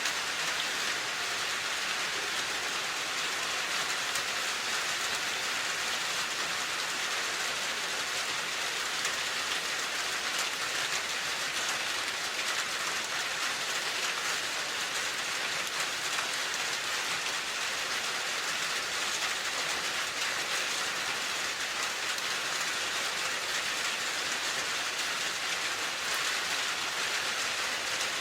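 Steady rain falling on a surface, a continuous even hiss of drops without pauses or thunder.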